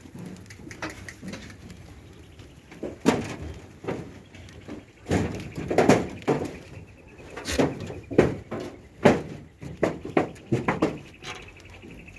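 Goats moving about in a pen: irregular knocks and thumps with scuffling between them. A faint steady high tone comes in about halfway through.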